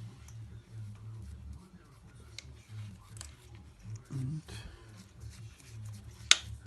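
Light clicks and taps of hand tools and metal parts being handled, with one sharp click about six seconds in, over a low steady hum.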